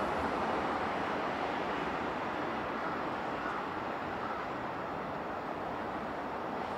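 Steady running noise of electric trains on the rails, an even rumble and hiss with a few faint, brief high squeals.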